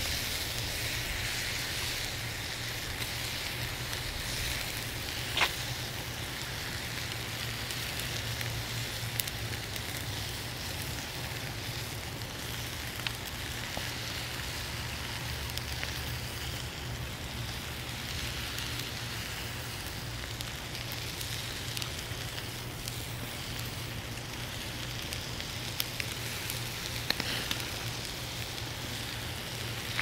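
Steak sizzling on the grate of a charcoal grill: a steady hiss with occasional sharp crackling pops, the loudest about five seconds in.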